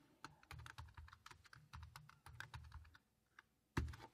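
Computer keyboard typing: a quick run of faint key clicks, then a pause and one louder thump just before the end.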